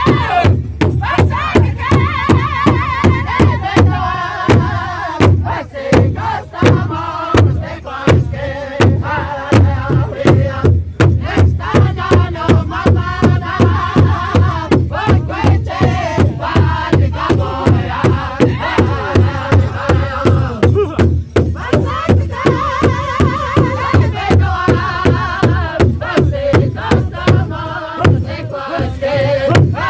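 Powwow drum group: several men beating one large shared hide drum in steady unison strikes, about three a second, while singing a powwow song together in loud chanting voices.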